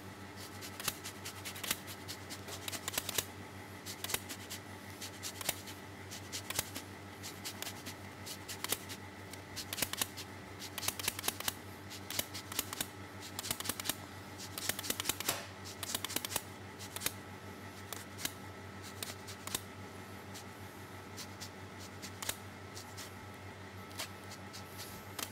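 Orange rind being zested on a small hand grater: a long run of quick, scratchy rasping strokes, coming in short uneven runs, over a faint steady hum.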